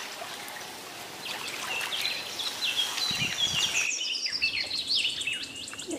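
Birds chirping: a quick run of short, high notes, each sliding downward, over a faint steady outdoor hiss.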